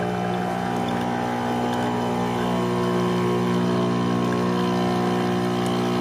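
Cafelffe EM653-3C espresso machine's pump running with a steady hum as hot water runs from the group head into a stainless steel pitcher, flushing the new machine before first use.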